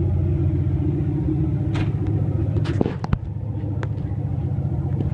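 Barra straight-six engine in a Ford XF ute idling with a steady low rumble. A few sharp clicks come through the middle, and the level dips briefly about three seconds in.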